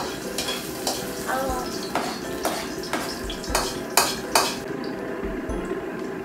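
Food sizzling in a frying pan while a metal spatula stirs and scrapes it, with repeated clacks against the pan; two sharper knocks come about four seconds in.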